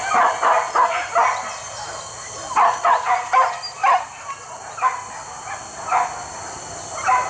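Hunting dogs on the chase after a wild boar, barking and yelping in quick runs of calls near the start and again about three seconds in, then a few single calls.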